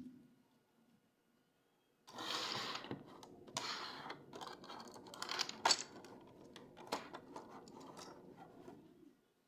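Near silence for about two seconds, then scraping and rustling with many sharp clicks from packaging and small toy train cars being handled and unboxed.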